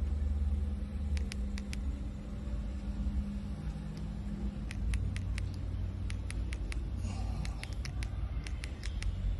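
Low, steady vehicle rumble with scattered faint, short ticks over it.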